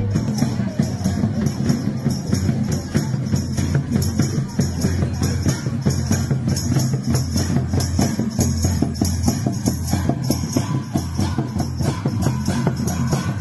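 Santali folk drumming: a barrel-shaped tumdak drum and a kettle-type tamak drum beaten in a fast, steady rhythm, with a bright metallic jingle over the strokes.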